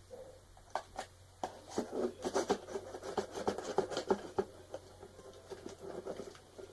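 A cardboard box being handled: irregular scratching, scraping and tapping on cardboard, busiest in the middle.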